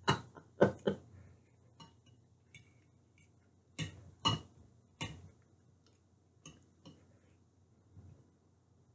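Close-miked eating sounds: a fork clinking and scraping on a plate, with chewing. They come as about a dozen short, irregular clicks and taps, the loudest near the start and around four to five seconds in.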